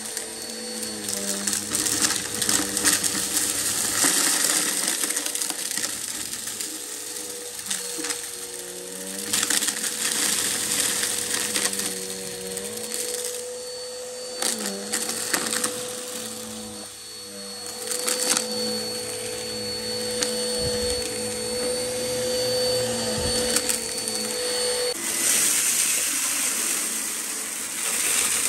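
Bissell Helix upright vacuum running with a steady motor whine, rattling and crackling as it sucks up hard dry debris from carpet, its pitch wavering as it is pushed back and forth. About 25 seconds in, the sound changes to a different vacuum, a Shark, running with a brighter hiss over a pile of finer dirt.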